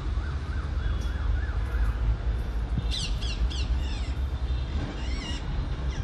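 Rose-ringed parakeets calling: a wavering trill in the first two seconds, then three or four quick, shrill descending screeches about three seconds in and another warbling call a little after five seconds. A steady low rumble runs underneath.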